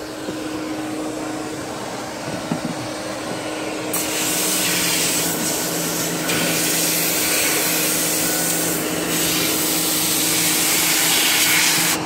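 A wet/dry shop vac runs steadily with a constant hum. About four seconds in, a Ryobi 1600 PSI electric pressure washer starts, and its water jet hisses loudly against the car's interior panels and seat belt.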